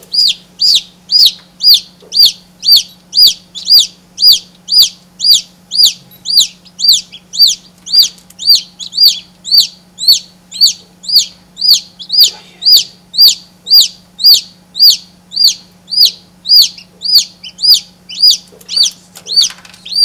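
Newly hatched chick, its down still wet, peeping loudly and steadily, about two high-pitched peeps a second.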